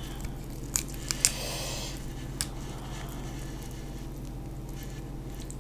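Shell of a boiled shrimp being cracked and peeled by hand: a few small sharp clicks and a brief crinkly rustle of shell around a second in, another click a little later, over a steady low hum.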